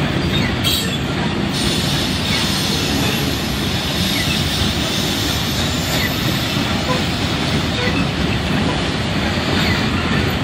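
Freight train of covered hopper cars rolling past, a steady rumble of steel wheels on rail.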